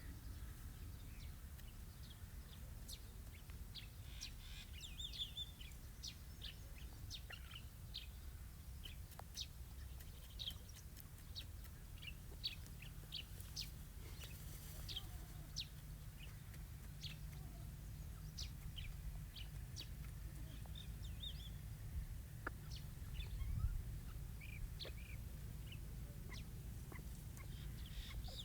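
A young francolin (partridge) giving many short, high-pitched chirps and peeps at irregular intervals, now and then a quick chattering run of notes, over a steady low rumble.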